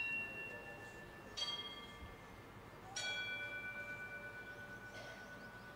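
Altar bells or chimes struck twice, about a second and a half in and again about three seconds in, each strike ringing on in several clear tones that fade slowly, over the tail of a strike just before. This is the bell rung at the elevation of the chalice during the consecration at Mass.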